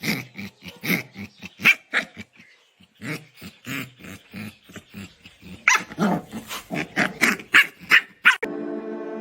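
A dog barking and yapping in quick short calls, several a second, over and over. They stop abruptly near the end, where calm music begins.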